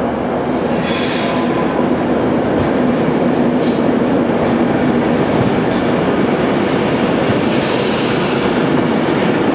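Class 390 Pendolino electric train running into the platform and past close by. There is a steady hum over the rolling noise of the wheels, and a brief high-pitched sound about a second in.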